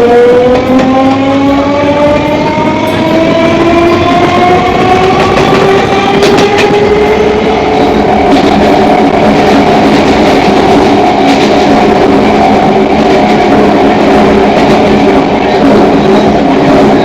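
Electric local train's traction motors whining in several tones, rising steadily in pitch as the train picks up speed and then holding level once it reaches running speed, over the rumble of the carriage.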